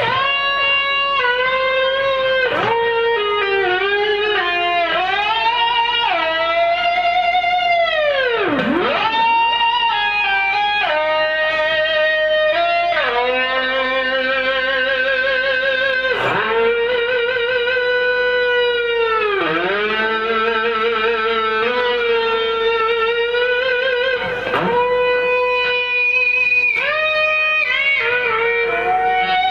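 Fernandes Revolver Pro electric guitar with a Fernandes Sustainer, through a Marshall JMP-1 preamp, playing a single-note lead of long held notes with vibrato. About four times the pitch dives deeply and swoops back up.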